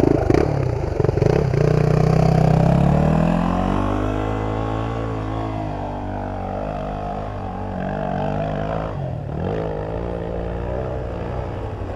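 Dirt bike engine under load climbing a hill, revs rising over the first few seconds and then holding. About nine seconds in the throttle is briefly let off and opened again, as a rider does to crest a water bar without jumping it.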